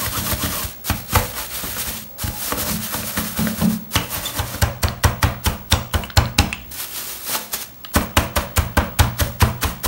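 Wooden rolling pin rolled over chilled Bis chocolate-covered wafer bars in a plastic bag, crushing them with rapid, irregular crackling and crunching that grows denser about four seconds in.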